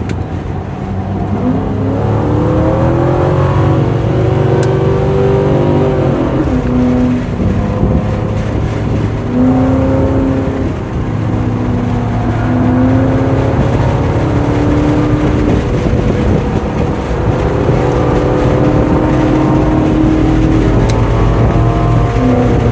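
Lincoln Mark VIII's 4.6-litre V8 heard from inside the car while lapping a track. The engine pitch climbs over the first few seconds, drops sharply about six seconds in, rises and falls through the corners, and climbs again near the end as it accelerates.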